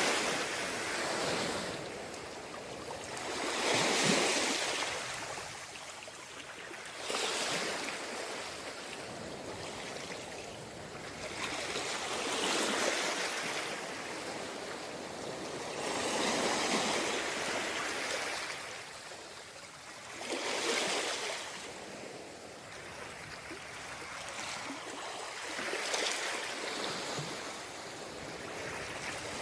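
Sea waves breaking on a beach, a louder rush of surf about every four to five seconds with a steady wash of water in between.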